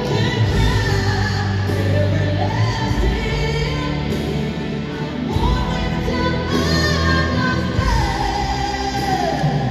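Live pop concert music played through a stadium PA: the band plays a held, gliding lead melody over steady bass notes, heard from far up in the stands.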